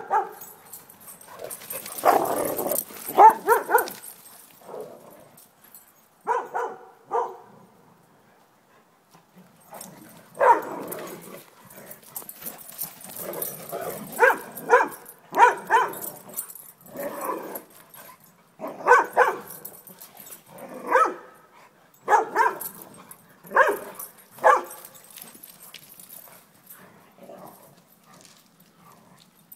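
Dogs play-fighting, barking in short bursts, often two or three barks in quick succession, with a lull about eight seconds in.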